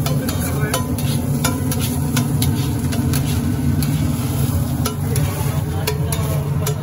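Metal spatula scraping and clacking against a large flat tawa griddle as pulao rice is stirred and tossed, sharp irregular clacks over a steady low hum.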